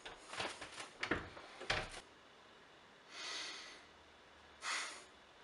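Handling noise of a camera being set in place: several knocks and rustles in the first two seconds. Then two soft breaths through the nose, a second and a half apart.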